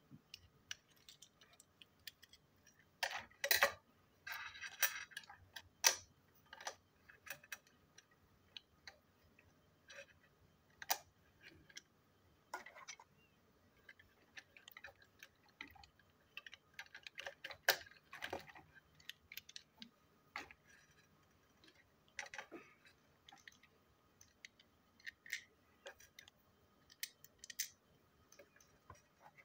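Irregular clicks and light knocks of plastic toy-train parts being handled and snapped together, with small screws tapping on the table; a louder cluster of clatter about three to five seconds in.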